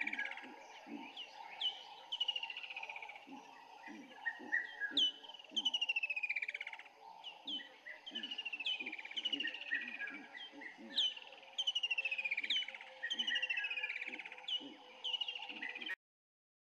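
Several birds calling over one another: repeated whistled notes that each fall in pitch, with softer low notes beneath. The sound cuts off suddenly near the end.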